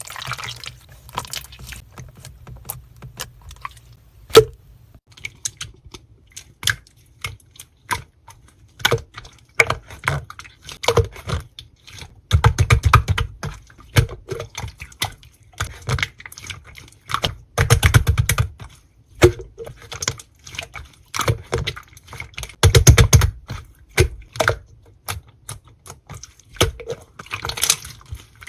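Slime being squished and poked by hand: a steady run of sticky clicks and wet pops, with three louder stretches of dense crackling about five seconds apart.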